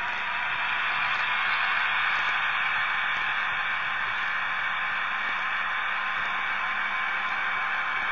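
Steady, even static hiss with a faint steady hum beneath it. There are no distinct clicks or rail joints.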